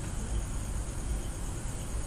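Steady background noise between narration lines: a low hum under an even high-pitched hiss, with no distinct events.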